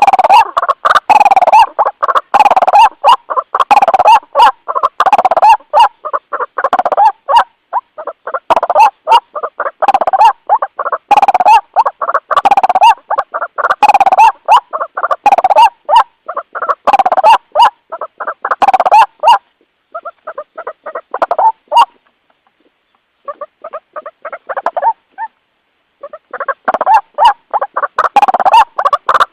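White-breasted waterhen calling: loud croaking notes repeated in a steady rhythm of a little more than one a second, the call used to lure others of its kind. About two-thirds through it turns softer and sparser for a few seconds, then resumes at full strength.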